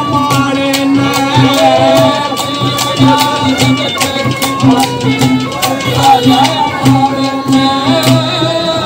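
Haryanvi ragni folk music played loud over a PA: a male singer with long held and bending notes over a quick steady percussion beat.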